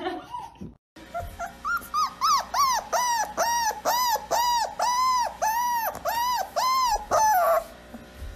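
A dog whining: short rising whimpers begin about a second in and settle into a steady rhythm of about a dozen high whines, roughly two a second, each rising and falling in pitch. They stop shortly before the end.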